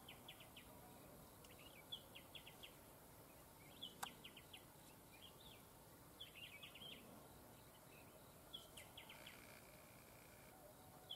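Red-whiskered bulbuls calling faintly: short phrases of a few quick, high notes, repeated every second or two. A single sharp click about four seconds in.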